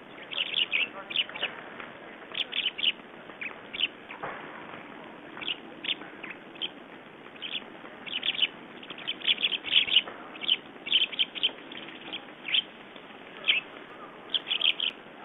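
A flock of small songbirds calling: short, high chirps in quick clusters of two to five, over and over, loudest about ten seconds in. A steady hiss runs underneath.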